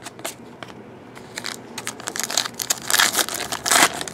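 Crinkling and tearing of a foil trading-card pack wrapper being ripped open, a dense crackle that grows louder about two seconds in.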